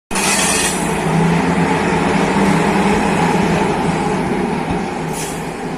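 HŽ Cargo class 1141 electric locomotive running close by, a loud steady mechanical hum from its motors and cooling equipment, with a brief high hiss at the start and another about five seconds in.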